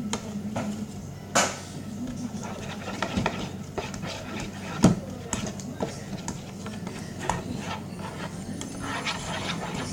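A spoon stirring white glue and water in a small container, making irregular clicks and taps, with two sharper knocks about a second and a half and five seconds in.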